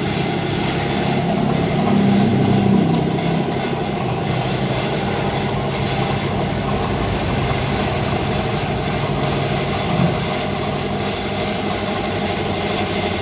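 Foam generator for lightweight CLC brick making running steadily: a constant motor hum with an even hiss as air-driven foam is forced out of its outlet.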